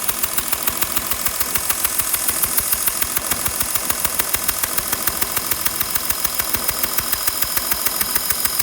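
2012 Porsche Cayenne's 3.0 V6 diesel engine idling with a sharp, regular ticking of about six or seven a second, which the owner suspects may be an exhaust leak.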